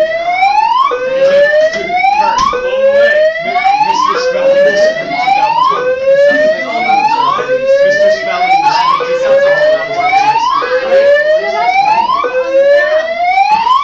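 School tornado-drill alarm sounding a repeated rising whoop: each tone climbs steadily for about a second and a half, then drops back and starts again, loud and unbroken.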